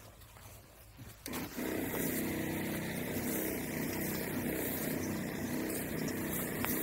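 Battery-operated sprayer pump starts about a second and a half in and runs steadily, spraying a paste mixture onto a pomegranate tree trunk.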